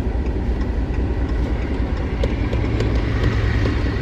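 Pickup truck engine idling, heard from inside the cab as a steady low rumble.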